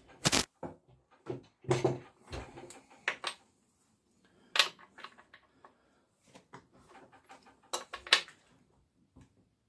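Chainsaw maintenance on a Stihl MS441: the chain brake clicks off just after the start, then a combination wrench (scrench) clinks and knocks against the bar nuts and sprocket cover as they are loosened. A string of separate sharp metal clicks and taps with pauses between, the loudest near the start and near the end.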